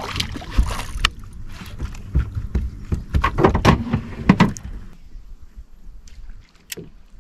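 Water splashing and a run of knocks and clatter against a bass boat as a smallmouth bass is landed by hand. The noise stops about five seconds in, leaving it quieter apart from one sharp click near the end.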